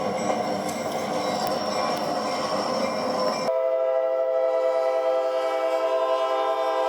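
A train running by with rail noise, then an abrupt cut about three and a half seconds in to a locomotive air horn sounding a steady chord of several notes, held.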